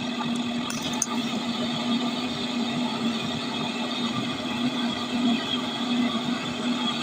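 A motor running at a steady speed, giving an even hum with a constant pitch and a couple of faint clicks about a second in.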